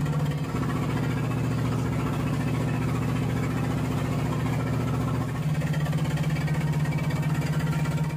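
Boat engine running steadily, its pitch dropping about half a second in and rising again a little past five seconds.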